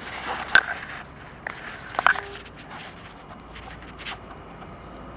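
A few sharp clicks and a short scrape from small parts handled by hand. The two loudest clicks come about half a second and two seconds in.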